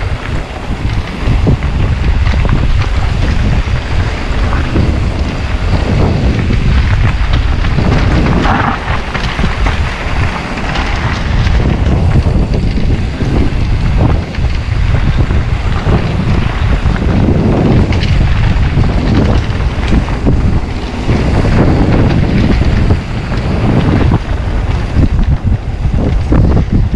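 Wind buffeting a GoPro Hero 9's microphone as a mountain bike is ridden at speed along a trail: a loud, continuous rush that swells and eases in gusts.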